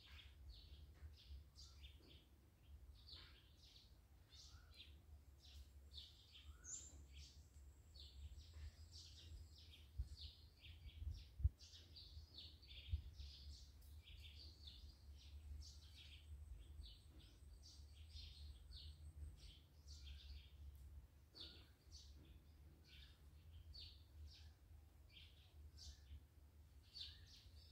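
Faint chirping of small birds, short high chirps repeating several times a second, over a low steady rumble. A few low bumps come between about ten and thirteen seconds in.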